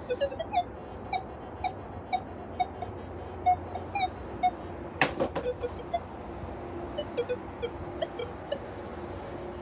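Minelab Equinox 900 metal detector giving short, quick beeps of shifting pitch, about two a second, as rusty iron nails and junk are passed over its coil: its target tones for iron. A single sharp knock about five seconds in.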